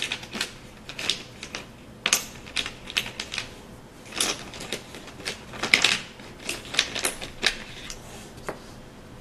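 Pattern blocks clacking against one another and onto the worksheet as they are picked up and set down: a quick, irregular run of light clacks that stops shortly before the end.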